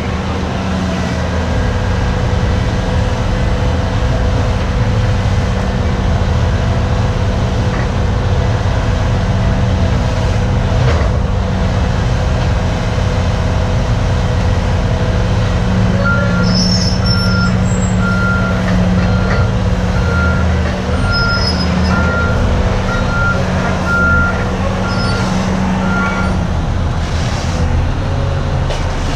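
Diesel engine of heavy construction machinery running steadily under work. About halfway through, a backup alarm starts beeping evenly, a little faster than once a second, and stops after about ten seconds.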